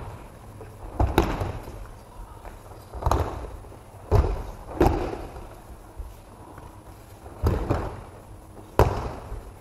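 Bodies landing on tatami mats as partners are thrown and take breakfalls in aikido practice: a series of sudden thuds, about six, irregularly spaced, each echoing in a large hall.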